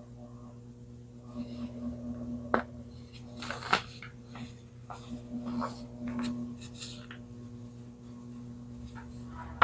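Close-miked ASMR sounds of handling and eating frozen baking soda: scattered scraping and tapping with two sharp clicks, over a steady low electrical hum.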